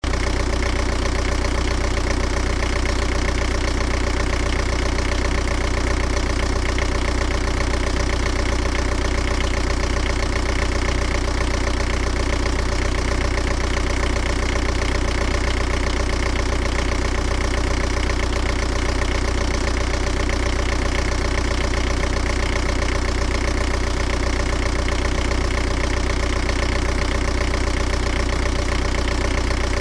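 An engine idling steadily, with a deep, even rumble.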